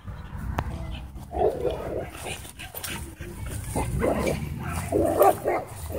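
Dogs wrestling at play, giving several short barks and growls about a second apart.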